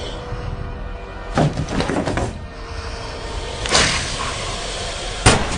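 Horror film soundtrack: a low music bed broken by three sudden crashes, the last one the sharpest, near the end.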